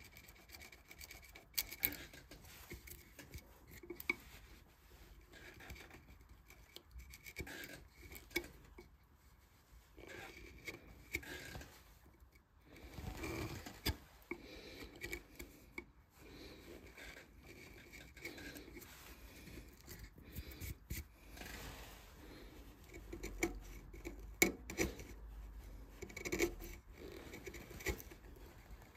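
Hand carving tools scraping and cutting into a wooden vase in short, irregular strokes, with occasional sharp clicks as the blade bites or lifts off the wood.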